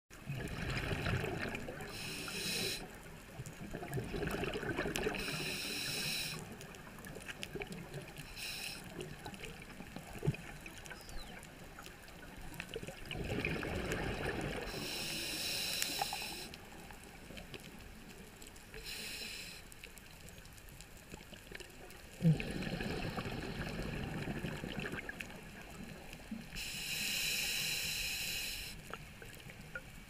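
Scuba diver breathing through a regulator underwater: a few slow breath cycles, each a rumbling burst of exhaled bubbles alternating with the regulator's high hiss. Two sharp knocks come through, one about ten seconds in and one about twenty-two seconds in.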